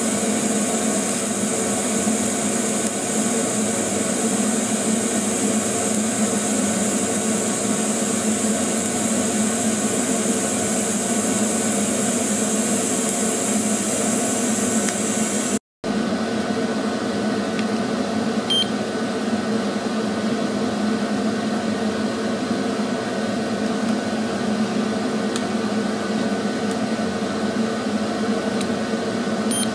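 MIG welder arc running steadily while tack-welding a ring onto a steel wheel bearing race: a loud, even hiss. It cuts off abruptly about halfway through, and a steady noise with less hiss goes on after it.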